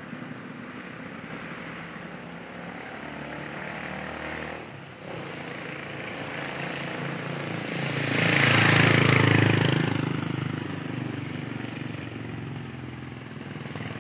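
Road traffic noise with a motor vehicle passing close by. It swells to its loudest about eight to nine seconds in, then fades away.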